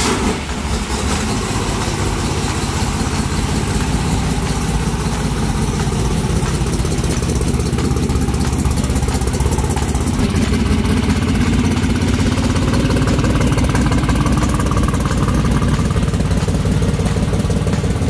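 Engine of a drag-race Chevrolet Vega, a V8 swap, idling loudly and steadily.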